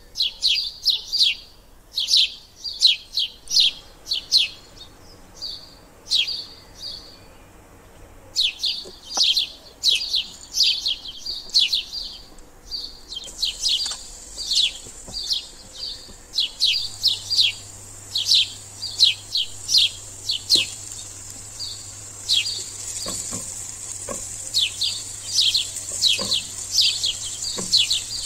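A small bird chirps over and over in quick clusters of short, high chirps. About halfway through, chopped onion and garlic start sizzling steadily in ghee in a nonstick frying pan, with a few light knocks of a spatula near the end.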